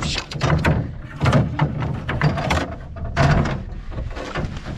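Dull knocks and thumps against an aluminum canoe hull, several in a row, as gear is handled over the side.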